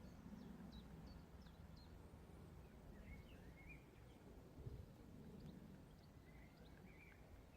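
Near silence outdoors: faint, scattered bird chirps and a few short warbling phrases over a low background rumble.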